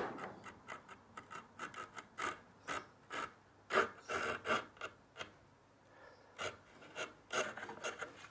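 Bench chisel paring a thin slice out of a wooden board along a knife-cut line, making a small groove for a saw to sit in: a rapid, irregular series of short scraping cuts, with a pause of about a second just past the middle.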